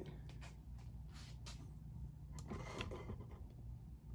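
Faint handling sounds of a dial indicator in a deck bridge: a few light clicks and soft scrapes as its bezel lock is tightened, over a low steady hum.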